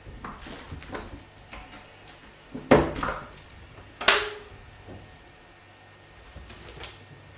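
Round metal door knob and its latch rattling and clacking as a cat paws and grips at it, with small clicks at first, then two loud knocks about a second and a half apart, the second with a brief metallic ring.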